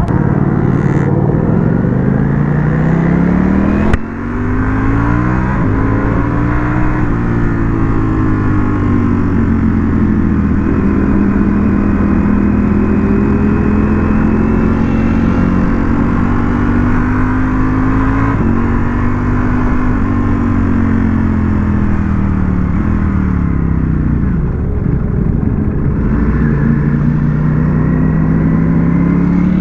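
Ducati Panigale V4S's V4 engine running on the move. Its pitch climbs under acceleration, drops sharply with a click at a gear change about four seconds in, and holds fairly steady with another step around eighteen seconds. It then falls as the bike slows and rises again near the end.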